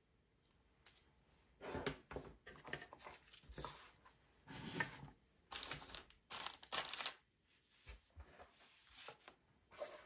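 Packaging being handled during a drone unboxing: a run of irregular rustling and scraping noises over a few seconds, then a few shorter, lighter clicks and taps.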